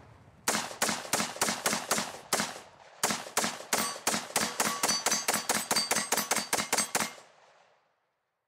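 AR-15 rifle fired rapidly in semi-automatic, about four to five shots a second: a string of about eight shots, a brief pause, then about twenty more. Hit steel plate targets ring through the middle of the second string.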